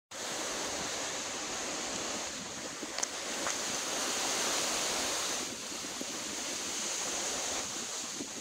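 Hurricane-force wind gusting through palm trees, a steady rushing hiss that swells and eases. There is a brief sharp tick about three seconds in.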